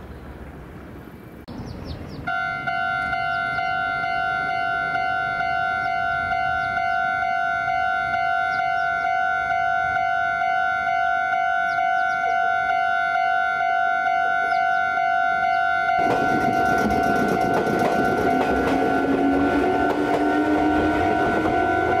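Japanese level-crossing warning bell: the electronic 'kan-kan' alarm starts about two seconds in and rings on in a steady, even rhythm. From about two-thirds of the way through, an approaching train adds a rumble of wheels on rails and a rising hum under the bell.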